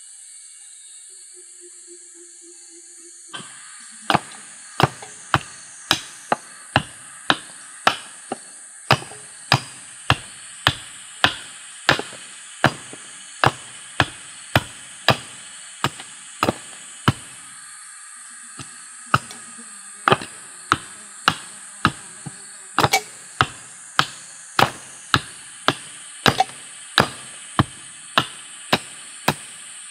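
Hatchet chopping into a wooden plank held upright on a block: a steady run of sharp blows, about one and a half a second, starting a few seconds in, with a short pause about halfway through.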